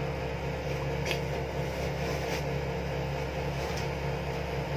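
Window-type air conditioner running with a steady hum and whir, with a few faint rustles about a second in, around two seconds and near the end.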